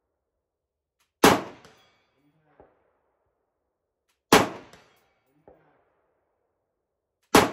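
Three rifle shots from a KR-103SFS AK-pattern rifle in 7.62x39 mm, fired slow and evenly about three seconds apart, each a sharp crack with a short ringing tail. A much fainter knock follows each of the first two shots about a second later.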